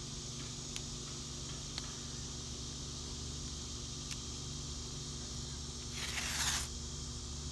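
3M blue painter's tape pulled off the roll with one short rip about six seconds in, over a steady low hum and a few light ticks.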